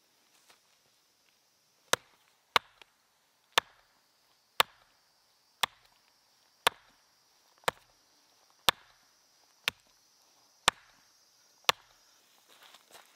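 Hatchet chopping birch wood: eleven sharp, evenly paced chops about a second apart after a short pause, with faint handling rustle near the end.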